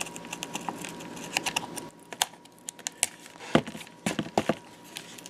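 Hobby knife blade cutting through laminating film and foam on an RC plane wing to free the flap: a scraping hiss for the first couple of seconds, with irregular light clicks throughout.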